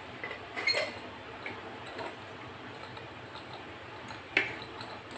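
A few light clicks and knocks of household items being handled and set down on a wooden TV stand during dusting, the sharpest about four seconds in.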